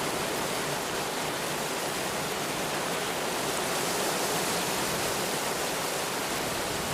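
Steady, even rushing water ambience, with no swells or breaks.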